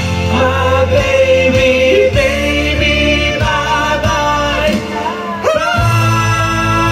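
Two male singers singing live through microphones over a pop backing track; about five and a half seconds in, the music slides up into a long held note.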